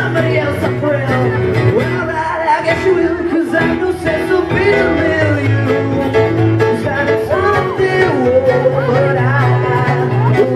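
Live male vocal sung into a microphone with guitar accompaniment, amplified through the venue's sound system.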